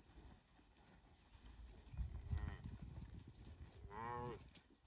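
Cattle mooing twice, faintly: a short moo about two seconds in, with a low rumble under it, and a clearer one near the end.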